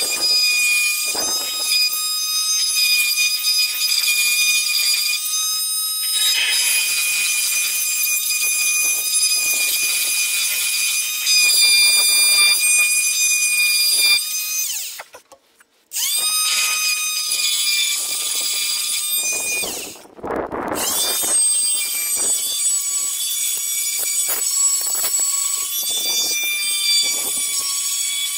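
Corded rotary multi-tool running with a high, steady whine as it grinds paint off the steel chassis down to bare metal. It stops briefly about halfway through, then dips again a few seconds later before running on.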